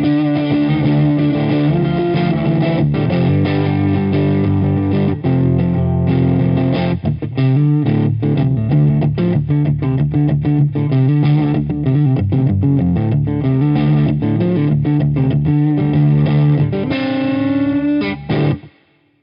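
Distorted electric guitar played through a Kustom Defender V15 tube combo amp. It opens with sustained overdriven chords, goes into a stretch of short, choppy chords, and ends on a note bent upward that stops abruptly.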